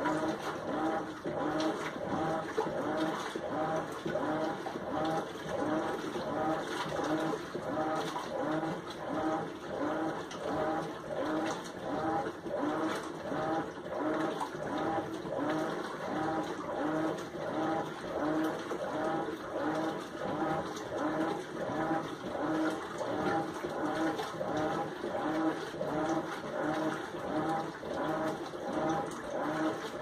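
Whirlpool Xpert System Smart Load top-load washing machine agitating a load in water during the wash cycle: a steady, rhythmic back-and-forth hum from the drive, with water swishing on each stroke.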